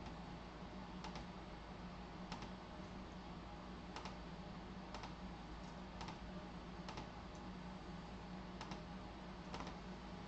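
Sparse clicking of computer keys, about one click a second, several in quick pairs, over a low steady hum.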